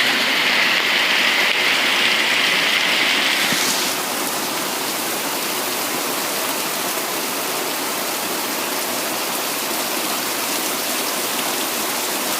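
Heavy rain pouring down in a steady hiss. A louder, higher hiss over the first few seconds cuts off suddenly about four seconds in, leaving the rain a little quieter.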